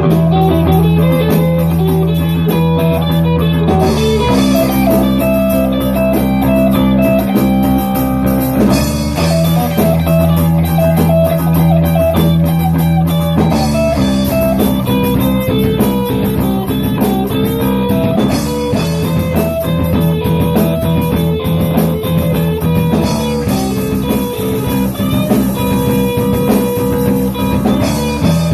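Guitar music: held chords and melody lines that change every four to five seconds in a repeating progression, with a bass line beneath.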